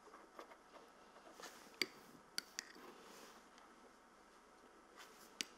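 Near silence with a few faint clicks of a metal spoon against a glass bowl and small metal tartlet tins as jam is spooned into the pastry-lined moulds.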